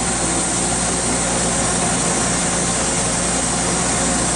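Steady hum of running industrial machinery: a low, even drone with a constant hiss over it and no change throughout.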